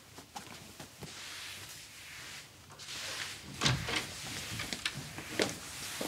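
A door latch clicks and a door opens about three and a half seconds in, followed by a few light knocks and clicks.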